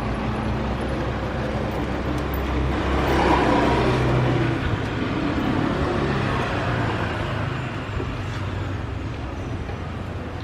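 A motor vehicle's engine running steadily, with a louder swell about three to four seconds in that fades again, as of a vehicle passing by.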